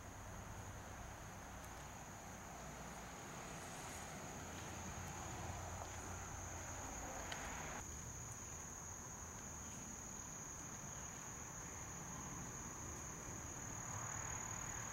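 Crickets trilling steadily at a high pitch, over a low rumble of handling noise from a handheld camera being carried.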